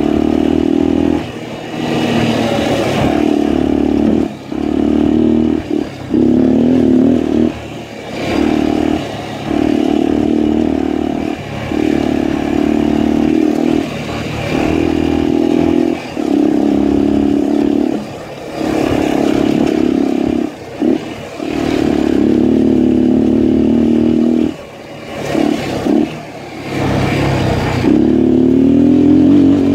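Honda XL250's single-cylinder four-stroke engine running under load as the bike is ridden, its note dropping away and picking up again every second or two.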